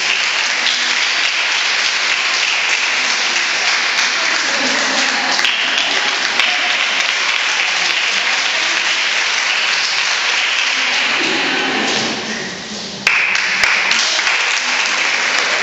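Audience applauding steadily; the clapping thins out about twelve seconds in, then comes back abruptly a second later.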